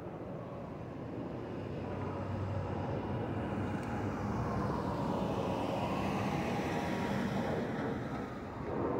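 Twin-engine jet airliner climbing overhead after takeoff: a steady jet engine roar that grows louder over the first half, then holds.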